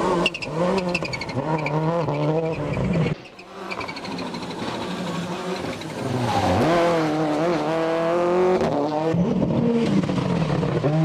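A 1999 World Rally Car's turbocharged four-cylinder engine revving hard through quick gear changes, its pitch repeatedly climbing and dropping. About three seconds in the sound drops away suddenly, then the engine comes back at high revs, easing off briefly and rising again near the end.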